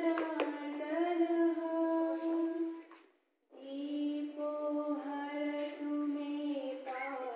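A woman singing long, held notes, breaking off briefly about three seconds in before singing on.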